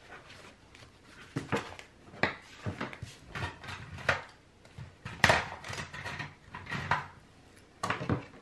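Paper rustling and light knocks on a wooden desktop as planner pages and a sticker sheet are slid and shuffled around by hand: a dozen or so irregular short handling noises, the loudest about five seconds in.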